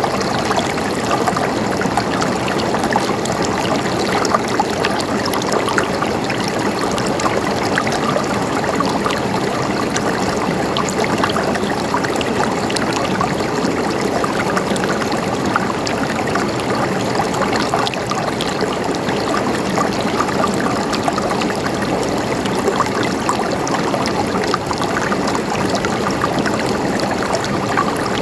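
Water flowing and gurgling steadily over rocks, a small stream or cascade with many small splashes and trickles.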